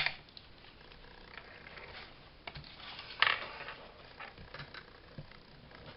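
Craft materials being handled on a desk: a sharp click at the start, scattered light taps and ticks, and a short paper rustle a little over three seconds in.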